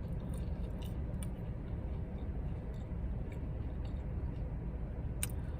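Steady low rumble inside a car's cabin, with soft chewing and scattered small clicks from eating, and one sharper click about five seconds in.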